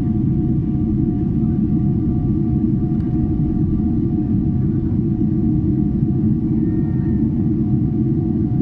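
Steady cabin noise inside a Boeing 777-300ER in flight after takeoff: a loud, even low rumble of airflow and its GE90-115B engines, with a faint steady engine tone above it.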